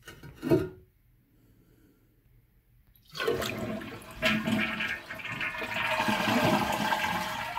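A short knock about half a second in as the porcelain toilet tank lid is handled, then, about three seconds in, the toilet flushes with a loud rush of draining water. The supply valve is shut, so the tank empties without refilling.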